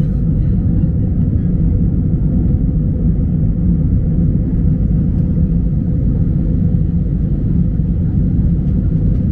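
Airliner taking off: a steady, loud, low rumble that holds even throughout.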